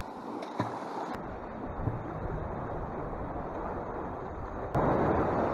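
Sea surf washing against jetty rocks with wind buffeting the microphone, a steady noise with no tone in it. A brief knock about half a second in, and the noise jumps suddenly louder near the end.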